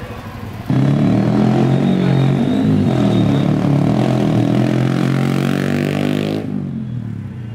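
Yamaha R15 V3 motorcycle's single-cylinder engine running loud through an aftermarket Daytona exhaust as the bike rides past. It comes in suddenly about a second in and drops away sharply near the end.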